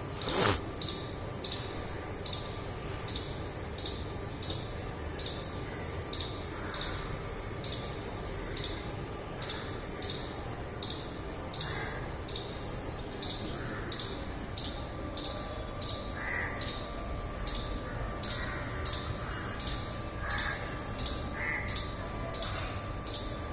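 Indian palm squirrel calling: short, sharp, high chirps repeated steadily about twice a second. Crows caw a few times underneath.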